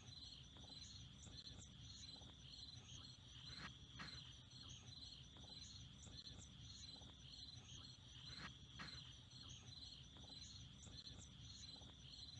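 Faint insect chorus in a field: a steady high chirping that pulses about three to four times a second.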